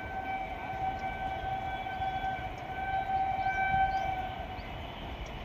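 Long, steady horn blast from a distant approaching WAP7 electric locomotive: one held note that swells about three seconds in and stops a little before the end, over a low rumble.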